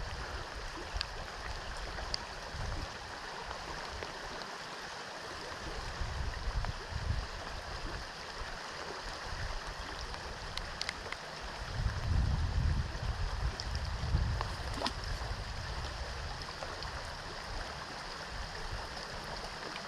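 Gunpowder River water rushing steadily, with a few light clicks and irregular low rumbles, loudest about twelve seconds in.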